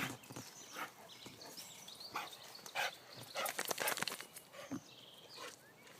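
Dogs at play, making short, scattered dog sounds, with a quick run of sharp clicks and rustles about three and a half seconds in.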